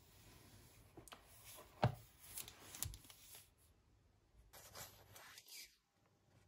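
Rustling and handling noises of things being moved about by hand, with a soft knock about two seconds in and a lighter one a second later; a second stretch of rustling cuts off abruptly near the end.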